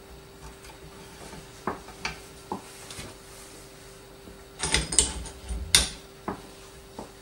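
Clicks and knocks of metal parts being handled on a microscope boom stand: a few light clicks, then a cluster of knocks about five seconds in as the zoom lens is set into the stand's ring holder, with the sharpest knock just before six seconds. A faint steady hum runs underneath.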